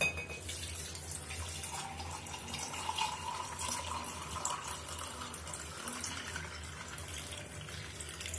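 Tender coconut water poured in a steady stream from a bottle into a glass mug over ice, lime and mint, the liquid splashing and gurgling as the glass fills.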